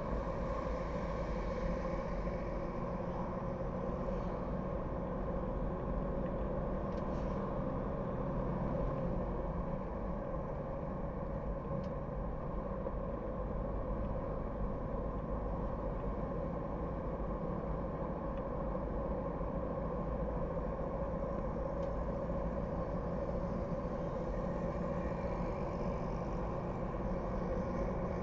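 Steady road noise of a car being driven in traffic: an even hum of engine and tyres with a low rumble, and no sharp events standing out.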